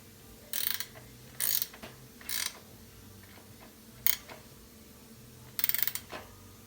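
Ratchet wrench clicking in short bursts: four quick ratcheting strokes and a single click about four seconds in. The wrench is snugging down the front axle nuts on a BMX bicycle fork.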